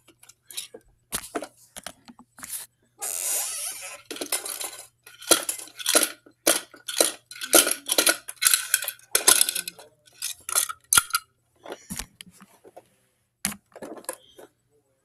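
Hard plastic toy garbage truck and its toy bins being handled, with the yellow bin-lifting arm being worked: a run of irregular plastic clicks, clatters and scrapes, with a longer scraping noise about three seconds in.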